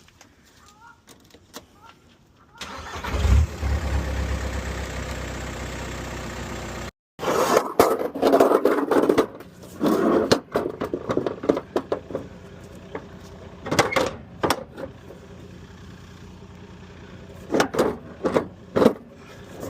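Caddy van engine turning over and running with a deep rumble once the battery has power. After a sudden cut, the engine comes back in loud, uneven bursts, rising and falling.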